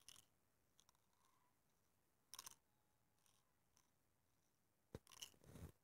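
Near silence, broken by a few faint clicks and short rustles, the clearest about two and a half seconds in and again near the end.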